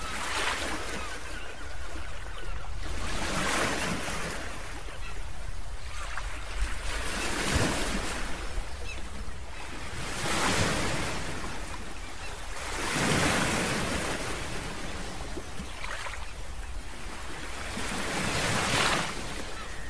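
Ocean surf breaking and washing in over rocks and tide pools, surging and easing about every three seconds, with a steady low rumble underneath.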